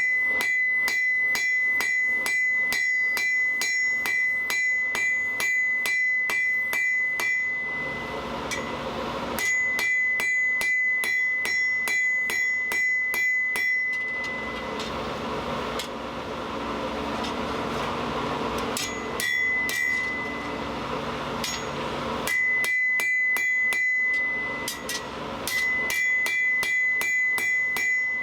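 Blacksmith's hammer striking hot steel on an anvil in quick runs of several blows a second, each blow setting off a high ring from the anvil, drawing the bar out to a thin taper. A steady rushing noise fills the pauses between runs.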